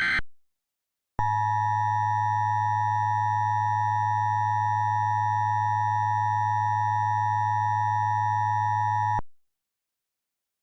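The tail of an Emergency Alert System SAME header data burst, a harsh warbling digital screech, ends near the start. About a second later the EAS two-tone attention signal sounds: 853 and 960 Hz played together as one steady, piercing tone with a low hum beneath it. It holds for about eight seconds and then cuts off abruptly.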